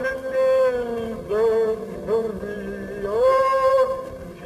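A man singing a slow melody in long held notes that slide from one pitch to the next, with lower notes sustained beneath.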